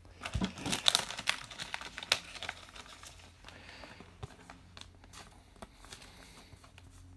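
Trading cards and a foil pack wrapper being handled: crinkling and light clicks of stiff cards, busiest in the first three seconds, then quieter scattered rustling.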